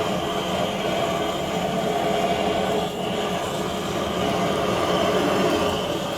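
A steady mechanical hum over a continuous rushing noise.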